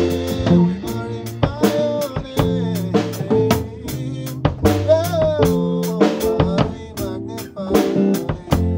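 Live gospel song: a man's singing voice over electric keyboard chords, with a drum kit keeping a steady beat of kick, snare and rimshot hits.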